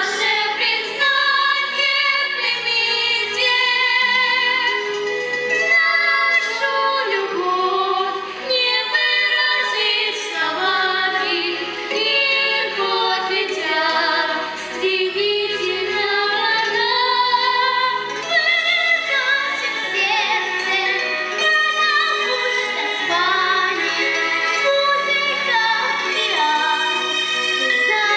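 Children's vocal ensemble singing a song into microphones, with instrumental accompaniment and a bass line that moves in steps.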